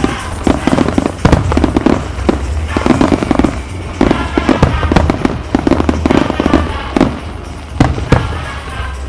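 Aerial fireworks shells bursting in rapid succession during a starmine barrage: many sharp bangs one after another, thinning out near the end.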